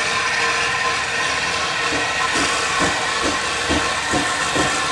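GWR 1400 class tank engine No. 1450 hissing steam steadily as it moves slowly with a train of goods wagons. From about halfway in, a soft knock repeats about twice a second.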